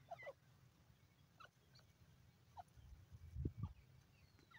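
Faint, scattered short bird calls, a handful of brief chirps and clucks, some dropping in pitch, with a low rumble about three and a half seconds in.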